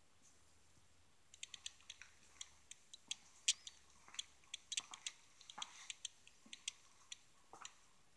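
A quick, irregular run of sharp, high clicks and ticks, several a second, starting about a second in and stopping shortly before the end.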